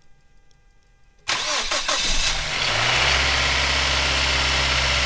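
Cold start of a Mazda CX-7's turbocharged four-cylinder petrol engine. About a second in the starter cranks briefly, the engine catches, flares, and settles within a second or two into a steady idle. It starts quietly and evenly, with no clatter from the timing chain or cam phaser.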